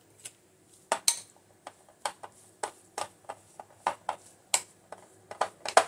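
Metal spoon stirring a stiff, crumbly dough in a ceramic bowl, clinking and scraping against the bowl about three times a second in an uneven rhythm.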